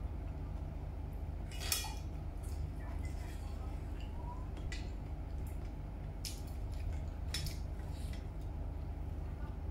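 Chopsticks and a metal spoon clinking against a stainless steel bowl as food is picked up. There are a few short clinks, the sharpest just under two seconds in, over a steady low hum.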